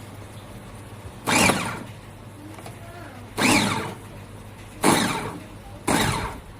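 Electric food chopper's motor pulsed four times in short bursts, each starting abruptly and winding down in pitch as it stops.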